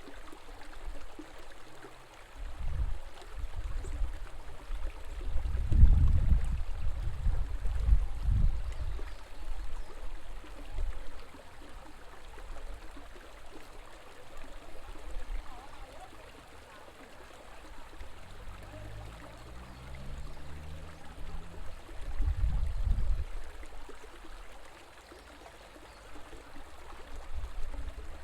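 River water flowing steadily, a constant rushing wash. Uneven low rumbles come and go over it, loudest about six seconds in and again a little after twenty-two seconds.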